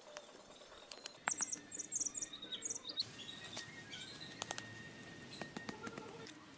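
Small birds chirping in quick, high-pitched runs of short notes, mostly in the first three seconds, with a few sharp taps or clicks scattered through.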